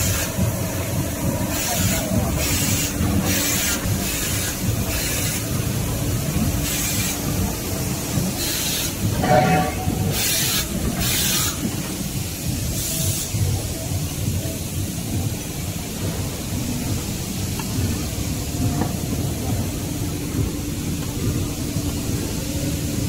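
Automatic facial tissue production line running: a steady mechanical hum and rumble of the machinery, with a series of short air hisses about once a second through the first half.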